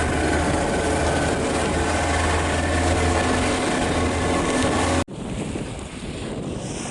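A motorboat engine running at a steady speed, with wind noise on the microphone. About five seconds in the engine sound cuts off abruptly, leaving wind and water wash.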